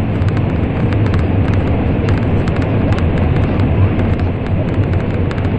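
Shinkansen train running at speed through a tunnel, heard from inside the car: a loud, steady, deep rumble of wheel and air noise, with faint scattered ticks over it.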